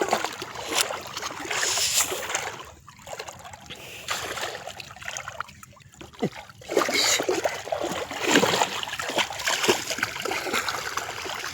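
Shallow canal water splashing and sloshing in uneven surges as people wade and work in it. The splashing is louder and busier in the second half.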